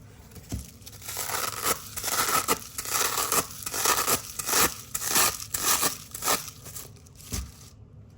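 Hook-and-loop (Velcro) strips being ripped apart in a run of crunchy, crackling tearing strokes that start about a second in, then one last short rip near the end.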